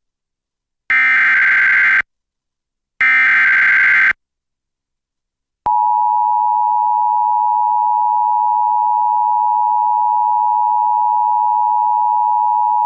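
Emergency Alert System tones opening a severe thunderstorm warning: two one-second bursts of SAME header data tones about two seconds apart, then, after a short gap, the steady two-tone EAS attention signal starting a little under halfway through and holding without a break.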